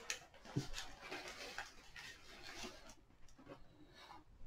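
Faint, irregular rustling and crackling of a willow-and-tissue-paper sculpture being handled and turned in the hands, with a soft knock about half a second in.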